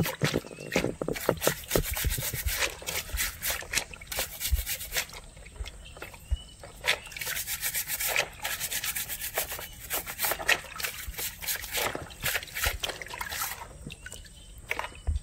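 Green scouring pad scrubbing crab shells under water in a plastic basin: quick, repeated scratchy strokes, with water sloshing.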